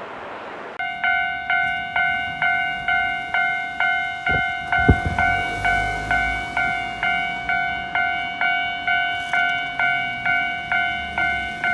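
Japanese railroad level-crossing warning bell ringing in a steady clang, a little over two strikes a second, starting just under a second in after a moment of rushing noise. Two low thuds come near the middle.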